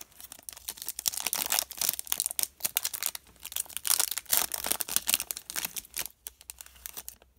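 Foil trading-card pack wrapper being torn open and crinkled in the hands, a dense, irregular crackling with a brief pause about six seconds in.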